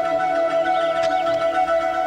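Background music: sustained held tones with a soft wavering melody above them.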